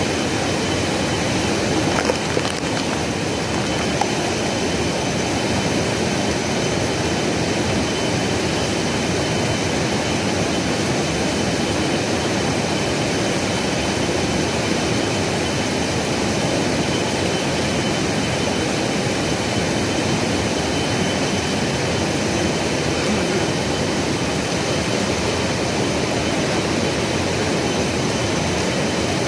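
A swollen river rushing steadily, the full flow of water in flood. A thin steady high tone runs through it, and there are a couple of small knocks about two seconds in.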